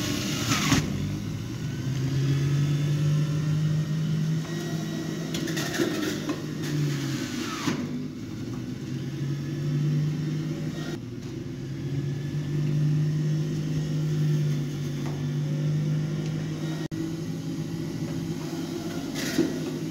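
A motor running with a steady low hum that swells and eases over several seconds.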